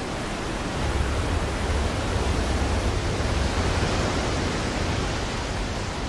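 Waterfall: a steady rush of falling water spread evenly across all pitches, with a strong deep rumble underneath, easing off near the end.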